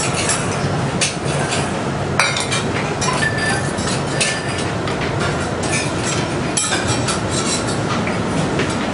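Steady kitchen background roar with frequent sharp clinks and clatter of metal utensils against plates and pans, a few of them ringing briefly.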